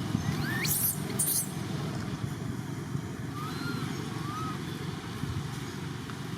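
A steady low rumble, with a rising chirp about half a second in and a few short arching whistles between three and four and a half seconds in.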